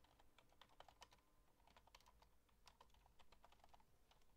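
Faint typing on a computer keyboard: an irregular run of quick key clicks.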